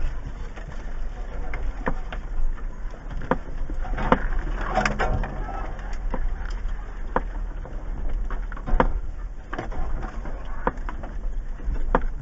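2015 Jeep Wrangler Rubicon's 3.6-litre V6 crawling over a rocky dirt trail: a steady low rumble with scattered knocks and rattles as the body and suspension jolt over rocks. A short low hum comes in about five seconds in.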